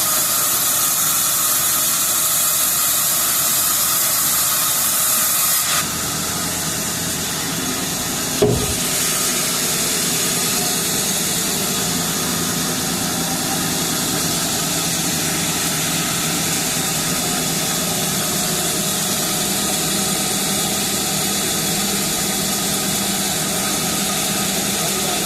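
Sawmill machinery running steadily with a strong hiss while timber is sawn. The hiss drops off about six seconds in, and a single knock follows a couple of seconds later.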